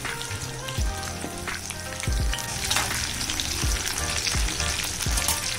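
Breadcrumb-coated chicken lollipops deep-frying in hot oil in a kadai: a steady, dense sizzle of bubbling oil, with the pieces stirred by a metal spatula. Background music with a steady beat runs underneath.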